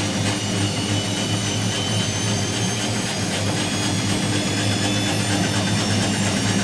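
Whirlpool AWG023 H-axis top-loading washing machine running: a steady low hum with a thin high motor whine that slowly rises in pitch as the sound grows a little louder.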